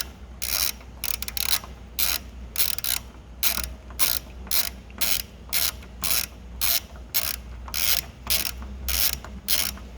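Ratchet wrench with a 14mm socket clicking in a steady rhythm, a few clicks a second, as it backs out the bolt that holds a spin bike's crank arm.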